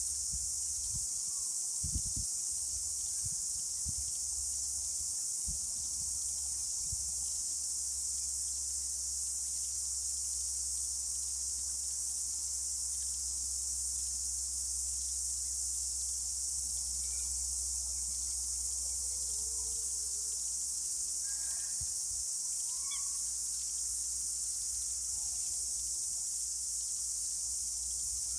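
A chorus of cicadas, a steady high-pitched shrill that holds unbroken at an even level.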